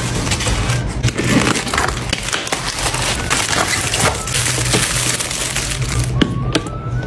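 Dense crinkling and crunching with many sharp crackles, over background music.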